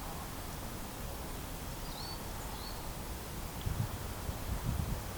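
Open-air heathland ambience: a steady hiss of background noise with two short, high, hooked bird calls about two seconds in. A couple of low rumbles come near the end.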